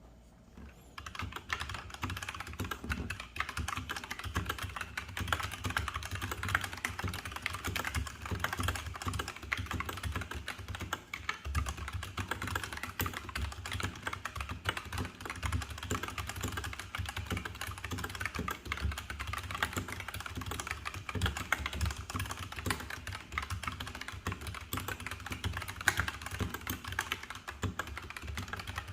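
BW-KB1 mechanical keyboard with Gateron Red linear switches being typed on continuously: a fast, dense stream of keystrokes that starts about a second in.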